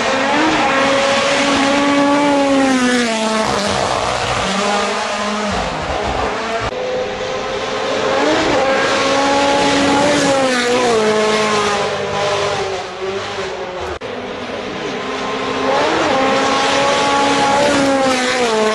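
Rally cars at full speed on a gravel stage, a Hyundai i20 N Rally1 among them. The engines rev high, and about three times the pitch climbs and then drops sharply as the cars shift, lift and pass, over the rush of tyres on gravel.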